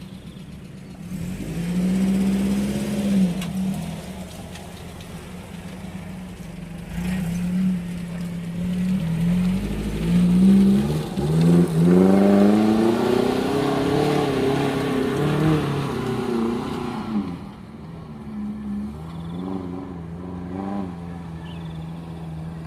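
Stock Suzuki Jimny engine revving under load off-road, its pitch climbing and falling in repeated surges, with the longest and loudest run of revs about halfway through before it drops back to a steady idle.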